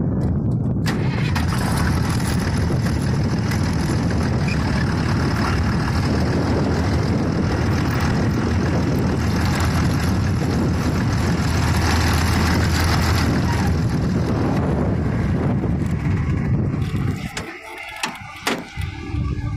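A tractor's diesel engine running loud and steady as the tractor and round baler pass close by. Near the end the sound falls away, with a few sharp knocks.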